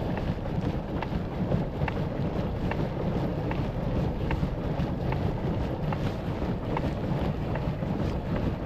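Wind buffeting the microphone on a pedal boat under way, with water moving past the hull. A faint, regular click comes a little more than once a second.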